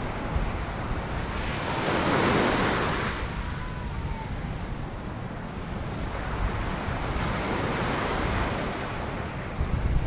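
Small ocean waves breaking and washing up the sand at the water's edge, swelling twice, once about two seconds in and again from about six seconds. A low rumble of wind on the microphone runs beneath.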